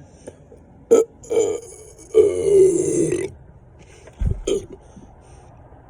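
A person burping repeatedly after chugging two litres of Diet Coke: two short burps, then a long one lasting about a second, then two more short ones near the end. The burps come from the swallowed carbonation gas.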